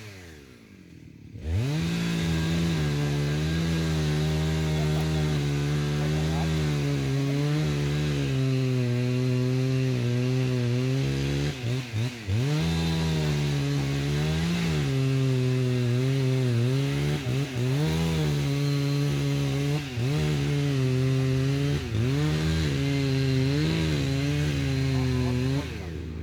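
Chainsaw cutting a eucalyptus trunk. It starts about a second and a half in and runs at high revs, with its pitch dropping and recovering again and again as the chain bites into the wood. It stops near the end.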